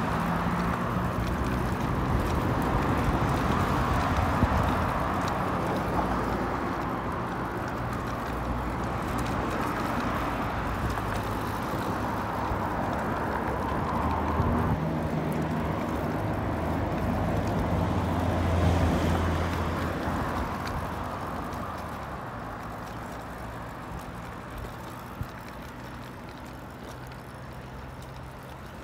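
Road traffic: a continuous hum of car engines and tyres that swells as vehicles pass, about four, fifteen and nineteen seconds in, then slowly fades away over the last third.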